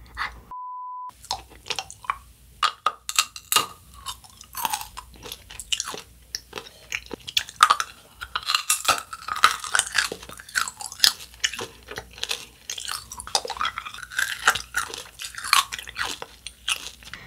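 Close-up mouth sounds of a child eating a dice-shaped hard candy lollipop: wet sucking with irregular clicks and crunches of the hard candy against the teeth. A short, steady beep tone sounds about half a second in.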